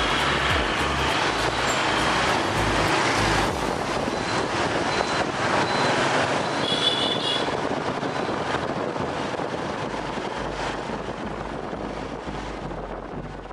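Motorbike street traffic heard from a moving motorbike: a steady wash of scooter engines and road noise, with a brief high-pitched beeping about seven seconds in. The traffic grows quieter toward the end.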